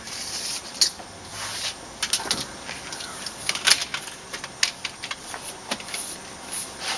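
Irregular sharp clicks and short scrapes of plastic retaining strips being pressed and snapped into a storm door's frame.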